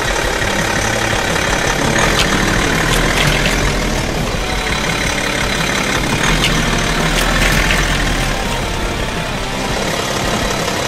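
BMW SUV's engine idling as the car creeps slowly forward on asphalt, with tyre noise and a few short clicks and crackles here and there.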